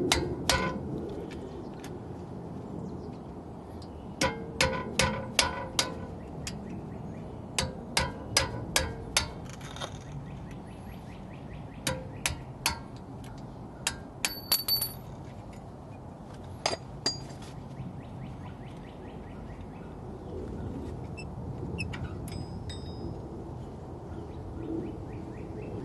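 Sharp metal-on-metal hammer taps on a pin punch, in bursts of about five, driving the brake pad retaining pin out of a Mercedes W220 brake caliper; the taps thin out to single knocks in the second half.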